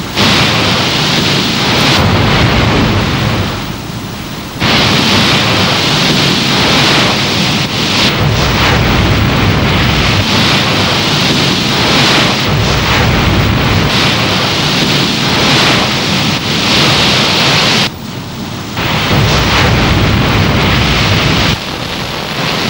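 Steady rushing sea and wind noise, like waves breaking along a ship's side at speed, with two brief dips where the sound drops away for about a second.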